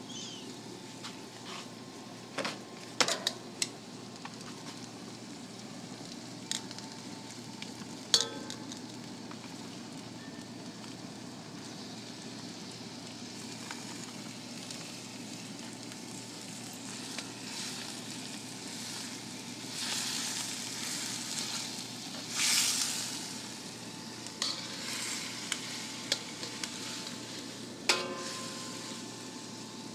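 Diced chicken and onions frying in a hot wok, sizzling steadily. A few sharp clicks cut through, and the sizzle swells louder twice about two-thirds of the way through.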